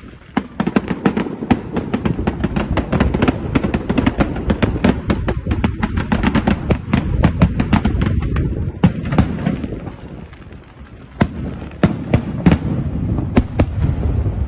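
Fireworks going off in a dense volley: many sharp cracks a second over a continuous low rumble of bursts. The barrage thins out briefly about two-thirds of the way through, then resumes with loud cracks.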